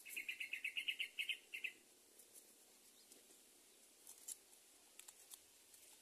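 Greater coucal nestling begging calls: a quick run of about a dozen high chirps lasting under two seconds, followed by a few faint clicks.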